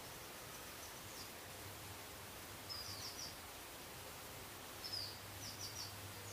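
Faint steady background hiss with a low hum, and small birds chirping faintly in two short clusters, about three and five seconds in.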